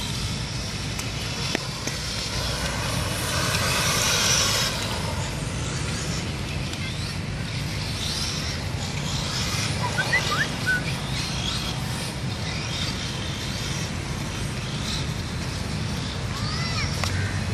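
Two brushless-motor RC cars, an HSP and a Kyosho DBX, racing. Their motors whine, gliding up and down in pitch as they speed up and slow down, loudest about three to four seconds in. A steady low rumble runs underneath.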